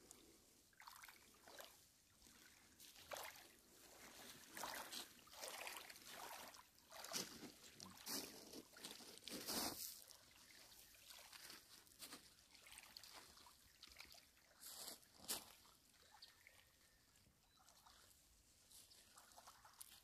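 Faint small waves lapping and trickling over a pebble shore in irregular soft washes, a few of them louder near the middle.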